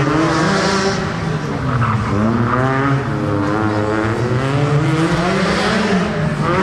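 Rally car engine revving hard, its pitch rising and falling several times.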